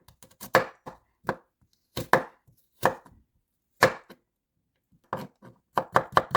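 Kitchen knife slicing vegetables against a cutting board: single knocks spaced a second or so apart, then a quicker run of cuts near the end.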